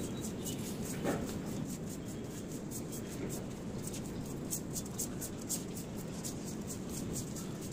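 A broom sweeping a concrete rooftop floor, pushing loose soil in quick, repeated scratchy strokes, several to a second.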